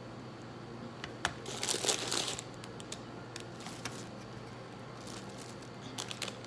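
Takeout food packaging crinkling as it is handled, in a few short bursts, the longest about one and a half seconds in, over a steady low hum.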